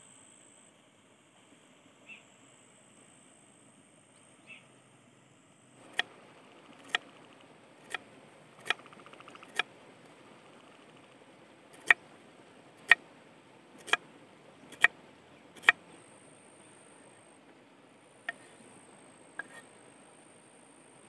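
A large kitchen knife chopping onion on a wooden cutting board: sharp knocks about once a second in two runs, then two more near the end. For the first few seconds there are only faint insect and bird chirps.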